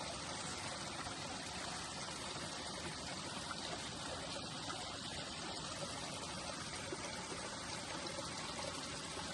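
Creek water trickling and flowing, a steady even rush.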